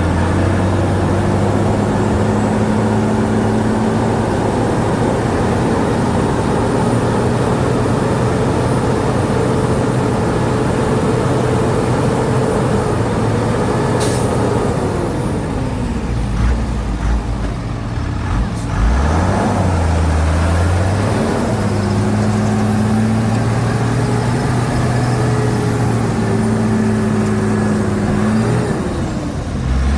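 Heavy diesel engine of earthmoving machinery running under steady load. Its revs fall away about halfway through, pick up again a few seconds later, and dip once more near the end. There is one sharp click about 14 seconds in.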